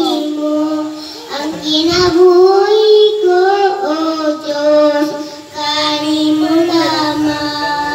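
A young girl singing into a microphone, holding long notes in several phrases.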